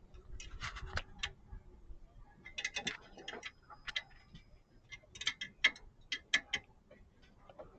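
Hand ratchet wrench clicking in short bursts of strokes while an air-conditioning hose fitting is tightened.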